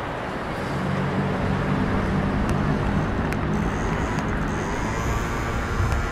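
City street traffic: cars driving past on the road, with a vehicle engine's low hum strongest in the first half.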